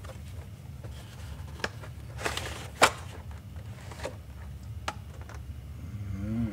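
Handling noise: scattered small clicks and taps with a brief rustle, as a boxed model train and its plastic packaging are handled. The loudest is a sharp click a little before three seconds in, over a steady low hum.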